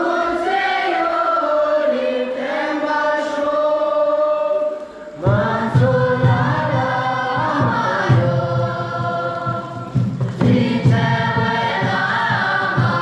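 A group of voices singing a song together on one melody, holding long notes. The singing breaks off briefly about five seconds in, then comes back fuller and louder.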